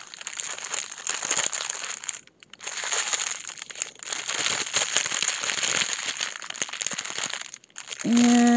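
Crinkling of thin plastic packets of diamond-painting drills as they are handled and stuffed into a clear plastic bag, with two brief pauses. A short, steady, held hum starts near the end.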